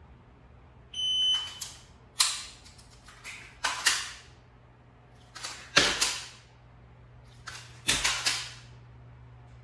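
A short electronic start beep from a shot timer, then a string of sharp clacks and clicks in clusters from a pistol being handled in dry-fire reload drills.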